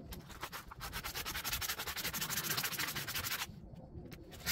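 Sandpaper rubbed back and forth on a motorcycle handlebar end, smoothing off leftover grip rubber: quick repeated scrubbing strokes, stopping for about a second near the end.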